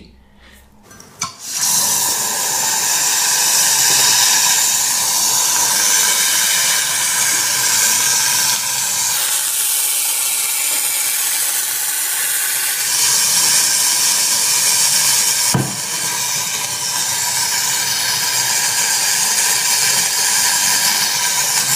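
A piece of sodium metal reacting on water in a glass bowl: a steady hissing and fizzing as it gives off hydrogen gas, starting about a second and a half in. One sharp click comes about three-quarters of the way through.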